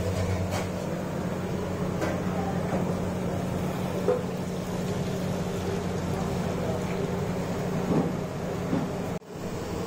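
Samosas deep-frying in a large kadai of hot oil: a steady sizzle over a constant low hum, with a few light clinks of utensils.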